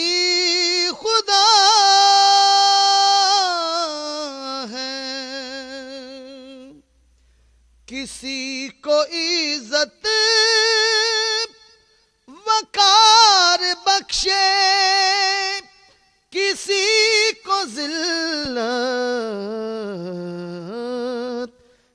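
A man singing an Urdu devotional hamd unaccompanied, drawing out long high held notes with a wavering vibrato and ornamented runs, in several phrases broken by short silent breaths.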